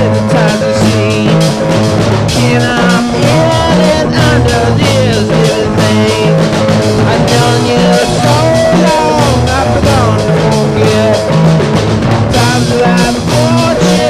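Folk-rock song played by a full band with drums, bass and a melody that bends in pitch, over a steady beat.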